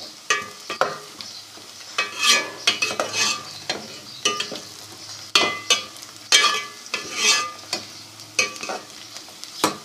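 Steel spoon scraping and clinking against a metal pot in irregular strokes, stirring sliced onions and garlic frying with a light sizzle.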